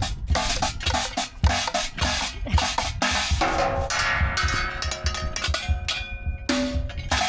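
Someone banging on percussion instruments made from junk: a quick, uneven run of drum-like strikes, with ringing metallic tones in the middle.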